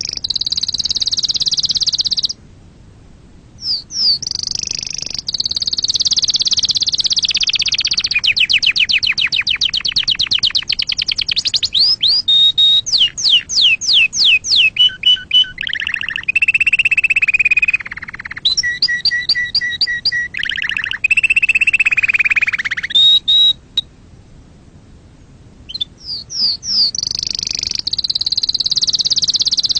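Domestic canary singing a long, varied song: rapid trills and rolls of repeated notes, a stretch of fast chirps in the middle, and lower held whistling notes, broken by two short pauses, one about two seconds in and one near the end.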